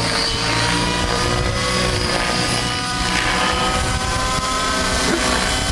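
90-class T-Rex radio-controlled model helicopter in flight, its motor and rotors making a steady whine whose pitch drifts gently up and down as it manoeuvres.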